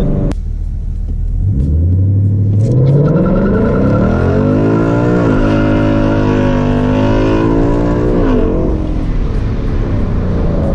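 2018 Mustang GT's 5.0 L Coyote V8 through a Steeda H-pipe exhaust, heard from inside the cabin while accelerating. The engine note climbs steeply, drops at an automatic upshift about five seconds in, climbs again, then falls back about eight seconds in.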